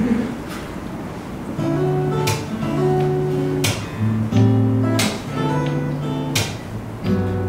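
Steel-string acoustic guitar playing a slow instrumental intro: chords picked and left ringing, with a sharp accent about every second and a half.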